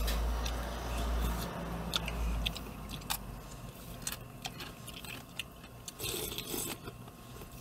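A man eating hot soup from a plastic bowl: chewing, light clicks of spoon and chopsticks, and a slurp about six seconds in. A low rumble runs under the first two seconds.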